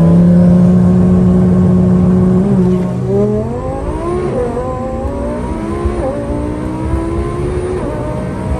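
Twin-turbo Lamborghini's engine, about 1,100 hp, heard from inside the cabin. It revs up and holds steady on launch control, then launches at about two and a half seconds in and pulls hard through the gears. The pitch climbs and drops back at each upshift, around four, six and eight seconds in.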